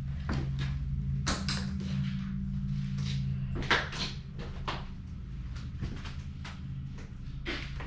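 Irregular knocks and scuffs in a small room over a steady low hum.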